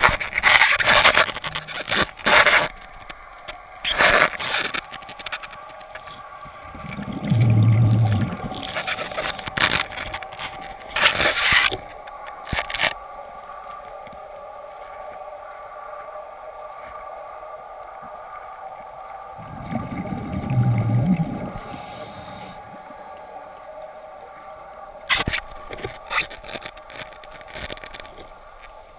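Muffled underwater sound heard through a camera's waterproof housing: a steady hum, with scrapes and knocks against the housing now and then and two low rumbles, a few seconds in and again past the middle.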